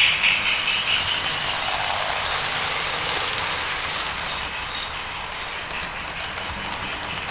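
Lionel and Marx toy trains running on three-rail O-gauge track: a steady mechanical rattle of wheels and motors, with sharp clicks about twice a second that fade near the end.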